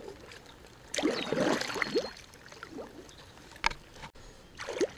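Kayak paddle strokes in calm water: the blade splashing and gurgling through the water about a second in and again near the end, with a single sharp knock in between.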